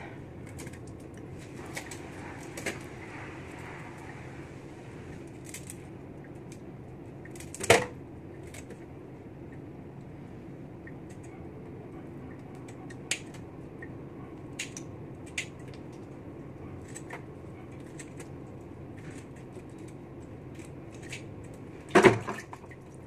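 Kitchen scissors snipping the shell edges off raw mantis shrimp, as scattered crisp clicks over a steady low hum. Two louder knocks come about eight seconds in and near the end.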